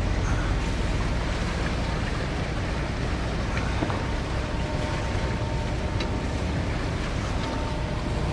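Pilot boat's engines running at a steady low rumble while it holds alongside a ship's hull, with water washing between the hulls and wind on the microphone.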